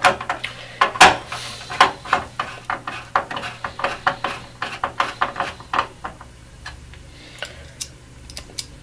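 Screwdriver driving a motherboard screw into a metal server chassis: a quick run of small clicks and ticks, about three or four a second, that thins out after about six seconds.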